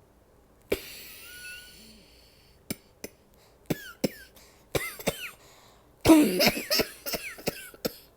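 A woman coughing with her mouth closed, in short suppressed coughs. One sharp cough comes with a breath after it just under a second in, then a few short separate coughs, and about six seconds in a longer, louder run of coughs.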